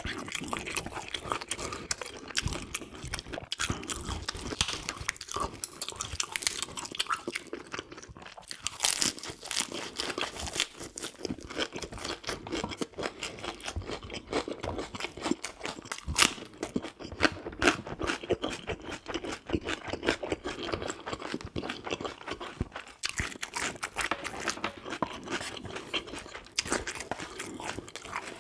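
A person chewing and crunching food, a steady run of quick crunches and mouth clicks with a few sharper bites.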